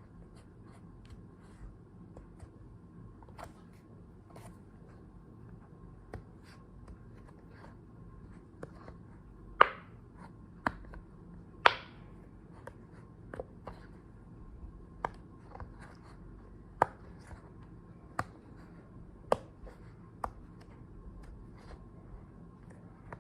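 Irregular sharp taps and clicks at an uneven pace, mostly light, with a few much louder knocks around the middle and later on, over a faint steady hum.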